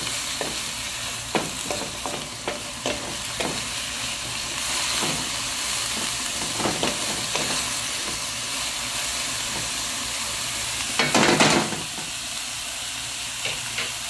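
Dried molokhia (jute mallow) leaves and garlic sizzling steadily in a nonstick wok as a wooden spatula turns them, with short knocks and scrapes against the pan, most often in the first half. A brief louder rush comes near the end.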